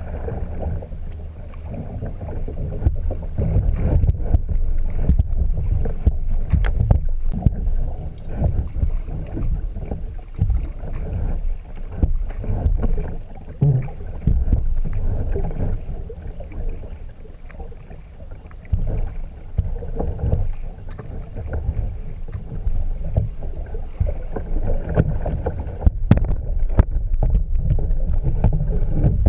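Outdoor sound from a kayak on the water: an uneven low rumble of wind and water with scattered knocks and splashes.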